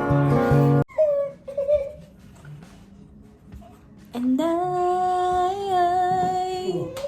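A music intro with strummed acoustic guitar that stops abruptly about a second in. It is followed, after a quieter gap, by a voice holding one long sung note from about four seconds in.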